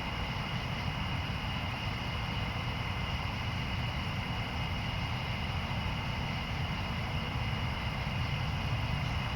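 Steady outdoor ambience: a constant low rumble with two steady high-pitched tones over it and no distinct thunderclaps.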